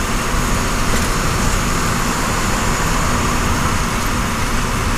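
Steady running noise inside a moving truck's cab at highway speed: engine drone mixed with tyre and wind noise, even and unbroken.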